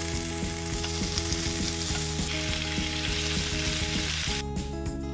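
Stir-fried chicken breast and vegetables sizzling as they are tipped from a frying pan onto a cast-iron platter, a steady hiss that cuts off about four seconds in. Soft guitar music runs underneath.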